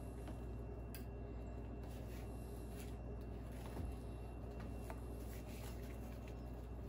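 Faint rubbing and clicking of stiff hoses being twisted and worked on a plastic T fitting by gloved hands, with a small knock about four seconds in, over a steady low hum.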